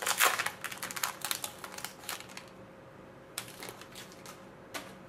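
Foil wrapper of a trading-card pack crinkling and tearing as it is peeled open by hand, a dense crackle over the first couple of seconds. Then come a few light, separate clicks as the cards are handled.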